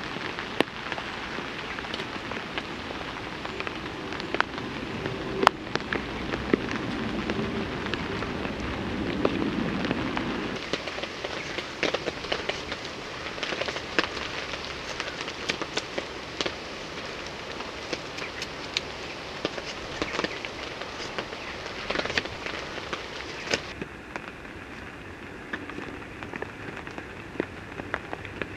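Steady rain falling on a tarp shelter, with frequent sharp drops striking it, and a knife shaving thin curls from a stick of wood to make a feather stick.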